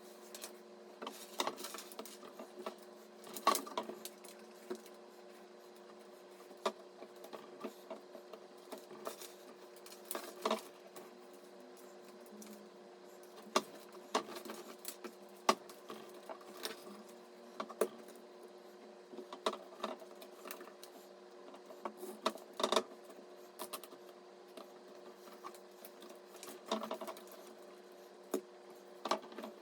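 Irregular light clicks and taps of computer parts being handled and fitted during a PC build, over a steady low hum.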